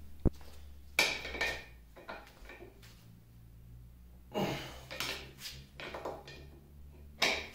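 Bursts of metallic clinks and clanks with a short ringing note, from a steel wrench working a stuck bolt on the cast-iron carriage of a 1950 LeBlond lathe, to break it loose.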